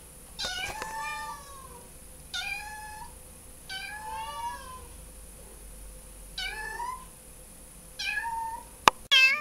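Kitten meowing repeatedly: five short, high meows, each rising then falling in pitch, one to two seconds apart. Near the end, a sharp click and then one more meow.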